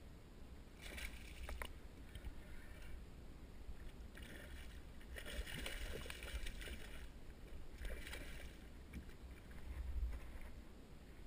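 Hooked catfish thrashing and splashing at the surface beside a kayak, in several bursts, the longest and loudest in the middle. A low rumble swells near the end.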